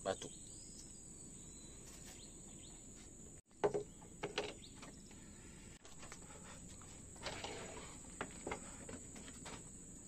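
Faint outdoor ambience with a steady high-pitched insect drone, and a few brief faint sounds over it.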